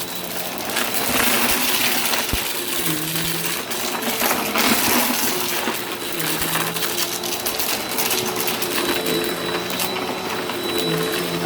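Vacuum cleaner running steadily while sucking up crunchy debris, with a dense stream of small clicks and rattles as bits go up the nozzle. Its motor hum shifts pitch now and then.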